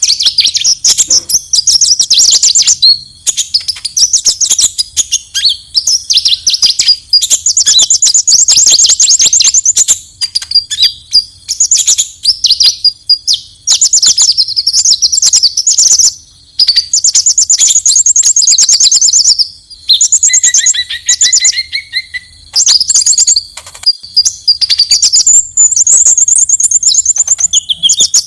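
Konin (kolibri ninja) sunbird giving its fighting call: loud, fast, high-pitched chattering trills repeated almost without pause, with a brief lower trill about two-thirds of the way through.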